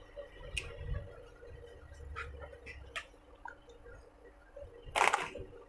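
Light clicks and scratchy handling sounds of a plastic instrument cluster and its circuit board being taken apart, with a louder brief scrape about five seconds in.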